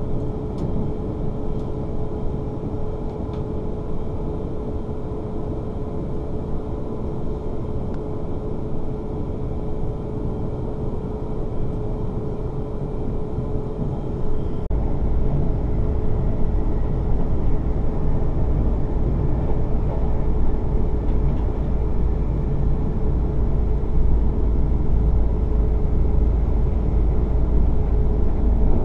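Cabin noise of a Class 444 Siemens Desiro electric train running at speed, heard from inside a passenger coach: a continuous rumble with a steady hum over it. About halfway through the low rumble suddenly gets louder and deeper, and stays that way.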